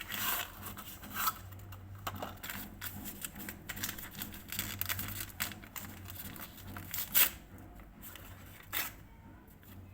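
Rustling and crinkling of packaging, with scattered clicks and taps, as a packet of baking powder is handled and opened. The sharpest click comes about seven seconds in.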